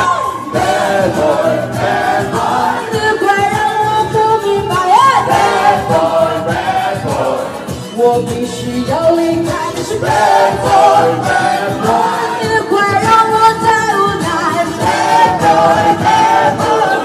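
Pop song with a sung vocal over a band backing, played loud; the sung lyrics around it are in Mandarin.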